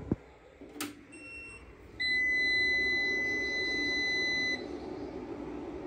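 Fronus hybrid solar inverter's buzzer sounding as the unit powers up: a faint short chirp, then one steady high beep lasting about two and a half seconds. A steady hum starts along with the beep and carries on after it.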